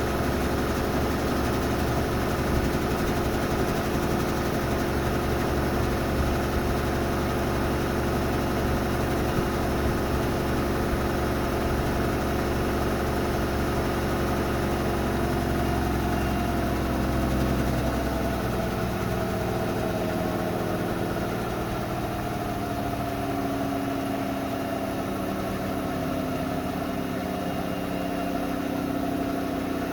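Washing machines, a Hoover Nextra Iconic and a Beko WDER, on a 1400 rpm final spin: a steady motor whine over a low drum hum. About halfway through, the pitch of the whine shifts as a drum's speed changes.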